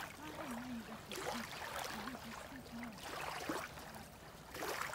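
Faint shoreline ambience: gentle water lapping at a pebbly beach, with a low faint voice in the background.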